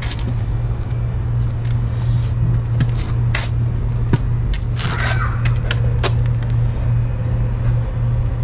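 A steady low hum, like a running machine, with scattered light rustles and clicks over it.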